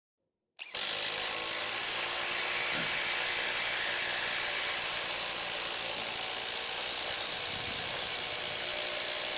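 Bosch IDH182 "Freak" 18-volt brushless impact driver hammering a long TimberLOK screw into stacked pine boards: a steady, rapid rattle of hammer-and-anvil impacts that starts about half a second in and holds at an even pitch and level under load.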